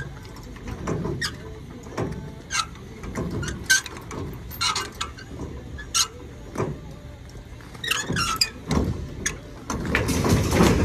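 Irregular metal clinks, rattles and scrapes of trailer safety chains and hitch hardware being handled, over a low steady rumble from the idling pickup truck. A louder rattling clatter comes near the end.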